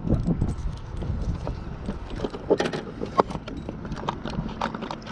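Irregular clicks and light knocks, a cluster of them about halfway through and more near the end, over a low rumble.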